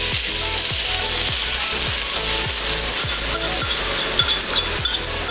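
Steady sizzling of tomatoes and green onions frying in a hot wok as a soy-based sauce is poured in.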